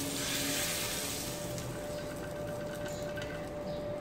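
Hot tempering oil (baghar) with red chillies, cumin and curry leaves sizzling as it is poured over boiled black chickpeas, the hiss dying away over the first second and a half. A faint steady hum continues underneath.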